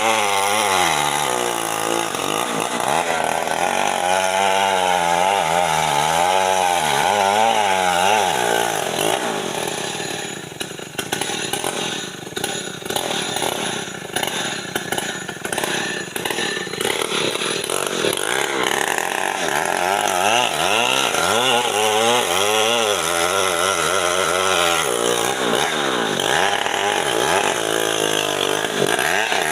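Gasoline chainsaw running and cutting jambu wood, its engine pitch rising and falling as it works under load. It drops quieter for several seconds around the middle before running hard again.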